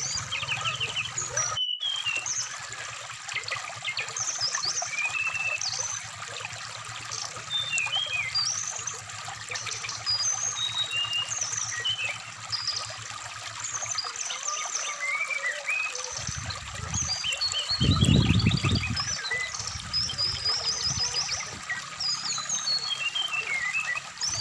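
Brown-chested jungle flycatcher song, a run of short varied chirps and trills, over a steadily trickling stream. The sound cuts out for an instant near the start, and a low rumble swells about two-thirds of the way through.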